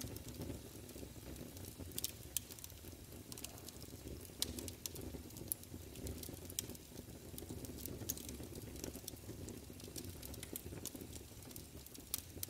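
Irregular crackling and popping clicks over a steady low rumbling noise.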